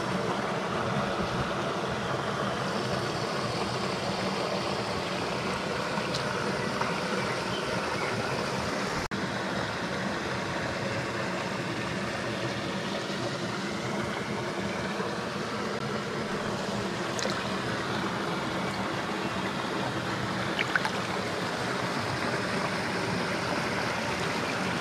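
Small torrent stream running over stones: a steady rush and gurgle of water, with one very short dropout about nine seconds in.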